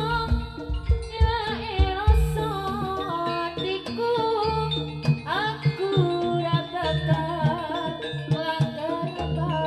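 Live Javanese jaranan music: a wavering, bending lead melody over repeated kendang drum beats and held gong-like tones.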